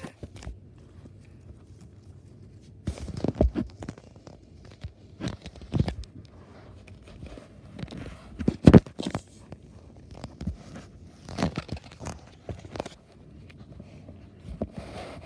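Irregular soft thumps and fabric rustling from plush toys being handled and knocked about on carpet, with the loudest thump about nine seconds in.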